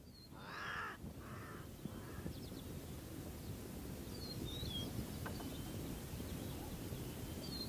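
Three harsh animal calls in quick succession, the first the longest and loudest, over a steady low rumble. Faint high bird chirps come later.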